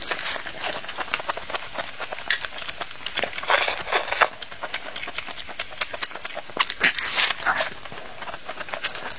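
Close-miked eating sounds: crunchy chewing of a fresh lettuce-and-vegetable wrap, with wet mouth clicks and smacks. There is a louder crunchy stretch about three and a half seconds in.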